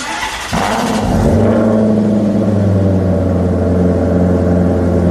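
Car engine running steadily at low revs: it comes up over the first second, then holds an even, deep drone with a slight waver.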